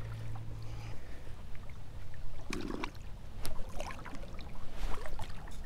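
Water sloshing against a rocky bank, with scattered knocks and scrapes of boots on riprap stones as the angler climbs down to the water's edge.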